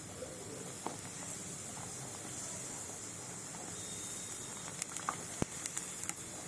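A dal-stuffed radhaballavi deep-frying in hot oil as it puffs up: a steady sizzle with scattered sharp pops and crackles, more of them in the second half.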